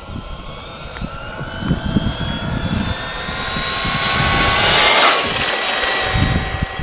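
Brushless motor of a 1:6 RC car on a 4S LiPo (2250KV motor, 18-tooth pinion): a high whine rising in pitch as the car accelerates. It is loudest about five seconds in, with a rush of tyre noise as it passes close, then drops slightly in pitch and fades.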